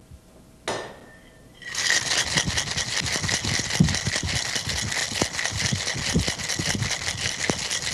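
A cocktail shaker being shaken hard with ice: after a single clink under a second in, a rapid, continuous rattle of ice against the shaker starts about two seconds in. The shaking whips the pineapple juice in the drink into a foamy head.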